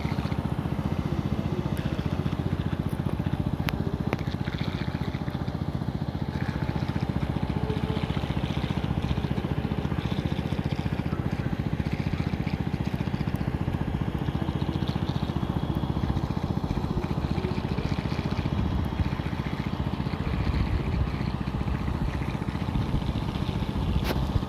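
Tractor engine running steadily, an even low drone that does not change.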